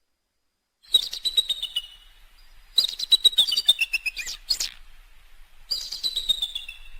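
Eagle calling: three bouts of rapid, high-pitched chittering notes, each series falling slightly in pitch, starting about a second, three seconds and six seconds in.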